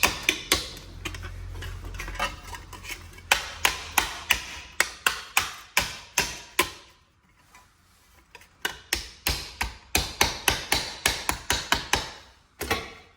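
Hammer blows on a sheet-metal panel: two runs of quick, sharp strikes at about three to four a second, with a short pause between them, as the panel's edges and corners are beaten into shape so it will fit.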